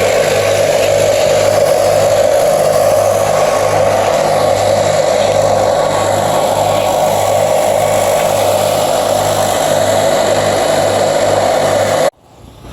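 Gas-powered leaf blower running steadily at full throttle, blowing the last moisture off a metal roof before the first silicone coat. It stops suddenly near the end.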